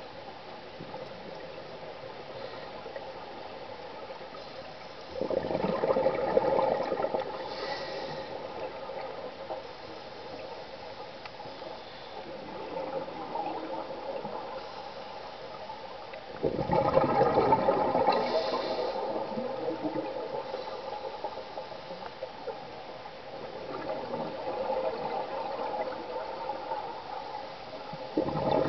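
Scuba diver's exhaled breath bubbling out of the regulator underwater: three loud gurgling bubble bursts, each about two seconds long and about eleven seconds apart, with a softer steady rushing between them.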